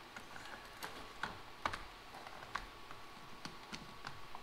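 Scattered light plastic clicks and taps, about seven over four seconds, from hands working wiring connectors into the under-hood fuse and relay box of a 2009 Kia Sportage.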